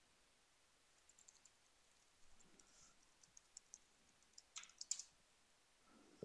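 Faint computer keyboard typing: scattered soft key clicks, with a short run of louder clicks about four and a half seconds in.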